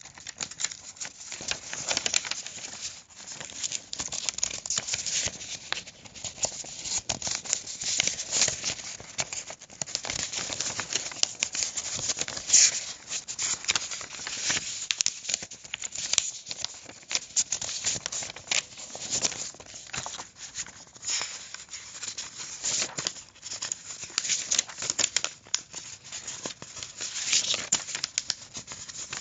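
Paper being crumpled and crinkled by hand: a continuous run of dry, irregular crackles with no pauses, a little louder for a moment about twelve seconds in.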